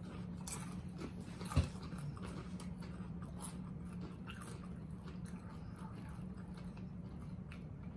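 Doritos tortilla chips being chewed with the mouth closed: faint, irregular crunches, with one sharper crunch about a second and a half in.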